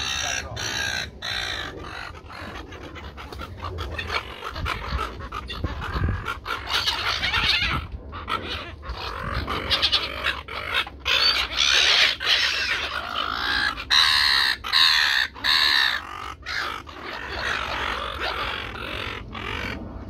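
A flock of silver gulls calling, a run of overlapping harsh squawks, loudest in the second half.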